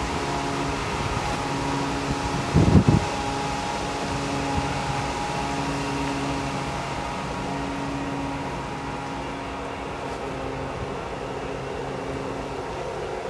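Voith Maxima diesel-hydraulic locomotive's engine running with a steady hum as it moves slowly past, fading a little toward the end. A brief low thump about three seconds in is the loudest sound.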